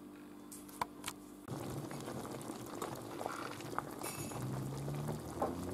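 Sauce and water around cabbage rolls bubbling at a boil in a multicooker bowl on its steam setting, starting about a second and a half in after a quiet moment with a single small click.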